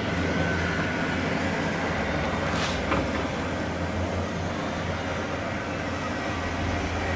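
A steady low droning hum over a wash of noise. A brief whoosh comes about three seconds in.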